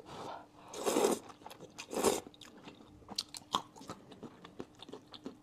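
A person slurping and chewing sweet potato glass noodles in a spicy, sour broth. Two noisy slurps come about a second apart near the start, followed by soft wet chewing clicks.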